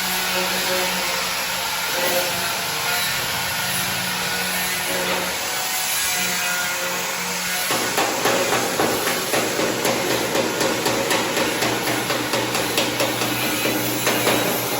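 Metalworking shop machinery running with a steady noise, joined about halfway through by rapid, regular hammer-like strikes, roughly three a second.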